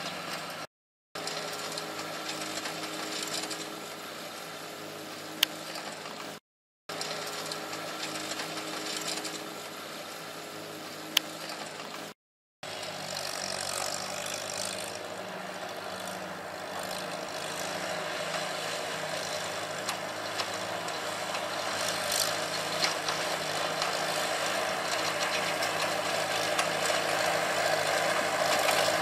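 Farmall tractor engine running steadily while pulling a side-delivery hay rake, with rattling from the rake. The sound drops out briefly three times in the first half, then grows louder through the second half as the tractor comes closer.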